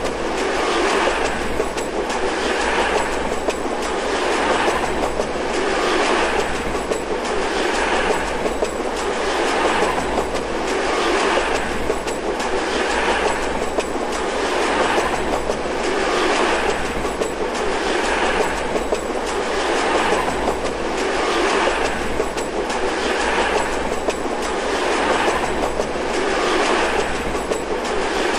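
Processed, looped recording of a commuter train's carriages passing at speed: the metal wheels clank and click over the rail joints in an even, repeating rhythm that swells about every second and a half to two seconds, over a steady whirring rush.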